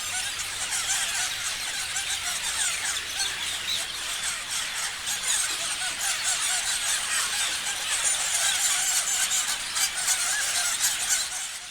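A flock of parrots chirping and screeching together: many overlapping short, high-pitched calls in a dense, unbroken chorus.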